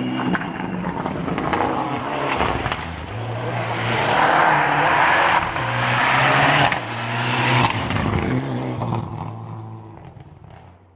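A rally car approaching and passing at speed on a stage, its engine revving hard and stepping through gear changes, with tyre and gravel noise; loudest about four to seven seconds in, then fading away into the distance.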